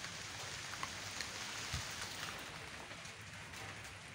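Rain falling during a thunderstorm: a steady, even hiss with a few scattered drop ticks and no thunder.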